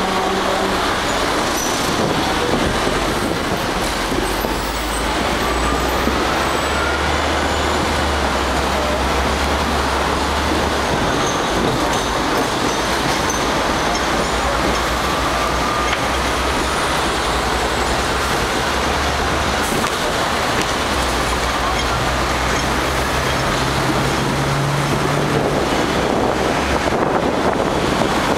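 Hong Kong double-decker tram running along street track, heard from on board: a steady rumble and rattle of the car on the rails, with a faint whine rising in pitch now and then and city traffic around it.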